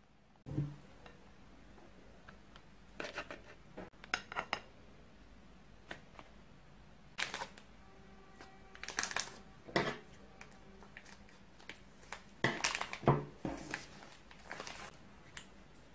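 Clear plastic piping bag rustling and crinkling in the hands as a metal piping tip is pushed into it, in scattered short bursts.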